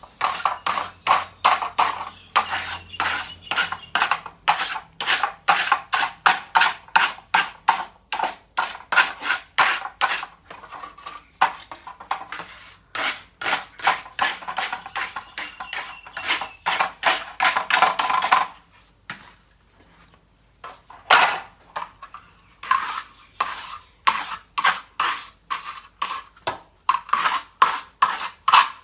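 Fast, rhythmic scrubbing or scraping strokes on a hard surface, about four a second, as grime is worked off the parts of a dirty ceiling fan. The strokes stop for about two seconds about two-thirds of the way in, then start again.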